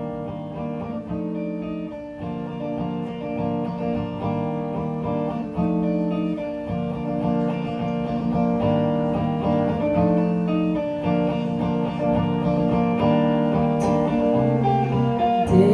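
Guitar playing an instrumental passage of a live song with no vocals, the chords changing about every two seconds.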